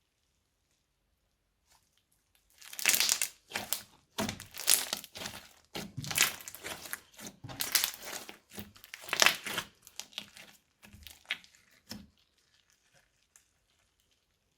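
Crunchy slime being squeezed and pressed, giving a run of crackling crunches that starts about three seconds in and dies away about twelve seconds in.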